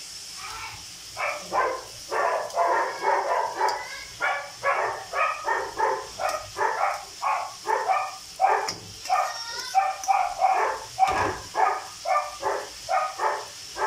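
A dog barking over and over at a quick, steady pace, about three barks a second.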